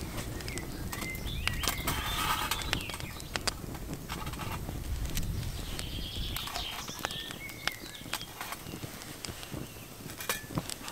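Small twig fire crackling and snapping in a folding steel stove as sticks are fed in, with sharp clicks throughout. Songbirds chirp and sing over it.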